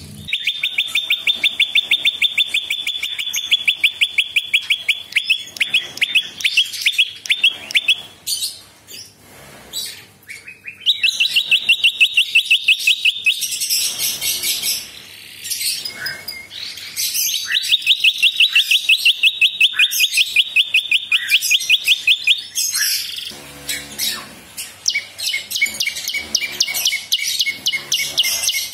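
Caged prinia (prenjak) calling in long, loud bouts, each a fast string of sharp, repeated high notes. Short pauses separate the bouts.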